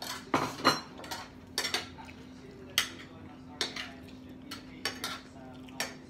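Tableware clinking during a meal: spoons and forks knocking against plates, bowls and a glass serving dish in irregular sharp clicks, about ten of them, over a faint steady hum.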